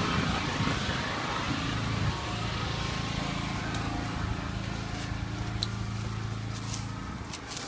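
Portable petrol generator engine running steadily at constant speed, a level hum, with a few light clicks near the end.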